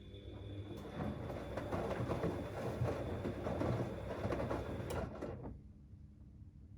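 Siemens Extraklasse XLS 140 A washing machine turning its drum during the boil wash, the wet load of cleaning rags tumbling and sloshing. The drum stops about five seconds in, leaving a low hum.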